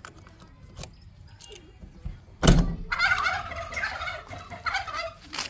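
Cab door of a JCB 3DX backhoe loader being unlocked and opened: small key clicks in the lock, a loud thunk about two and a half seconds in as the latch releases, then about two seconds of rough, wavering creaking as the door swings open.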